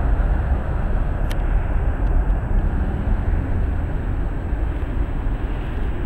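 Jet airliner's turbofan engines heard from a distance as a steady rumble, with one brief click about a second in.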